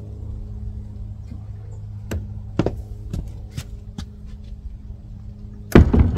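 Wooden shed door being opened and shut: several light knocks and clicks as it swings open and someone steps through, then one loud bang near the end as it is pulled closed. A steady low hum runs underneath.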